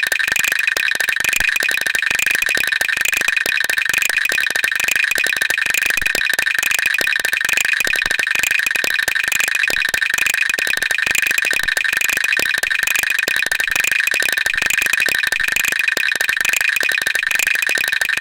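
Teeth-chattering sound effect: a dense, very rapid stream of clicks that keeps going, over a steady high-pitched whine.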